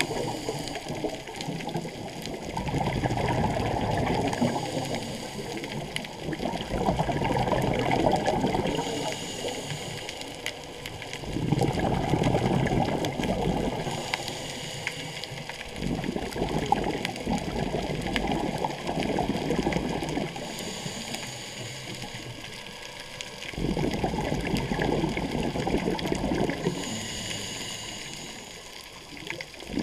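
Scuba diver breathing through a regulator, recorded underwater: long gurgling rushes of exhaled bubbles every five to seven seconds, with a short high hiss of inhalation between some of them.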